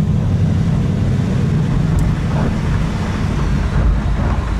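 Ford Mustang GT's V8 engine running steadily at low speed, a deep, even drone, heard from the car's open-top cabin.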